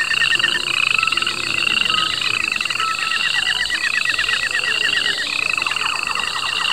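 Night chorus of chirping and trilling calls in the manner of frogs and insects: a short rising chirp repeats about twice a second over a fast pulsing trill, steady throughout.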